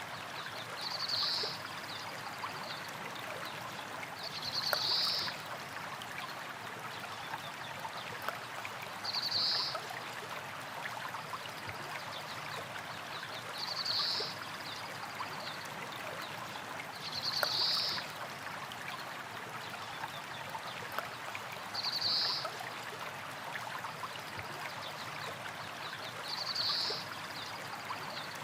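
Small rocky stream: water running and trickling steadily over stones. A short high trill recurs every four or five seconds.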